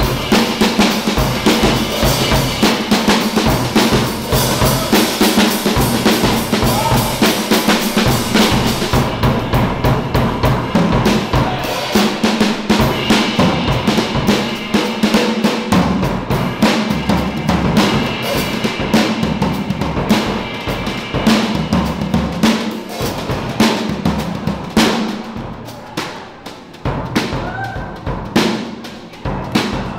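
Drum kit solo played with bundled wooden rods: busy strokes across snare, toms and bass drum under a wash of cymbals. About nine seconds in, the cymbals thin out and it becomes mostly drum strokes, dipping quieter for a moment near the end.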